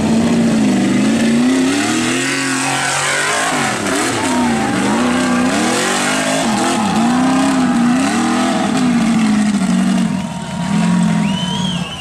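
Rock bouncer buggy's engine revving hard under load on a steep hill climb. Its pitch swings up and down again and again as the throttle is worked, and it drops in level near the end.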